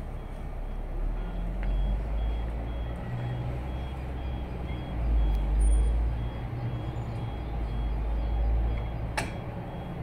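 Low engine rumble of a motor vehicle running nearby, swelling about halfway through. A faint high beep repeats about twice a second throughout, and there is one sharp click near the end.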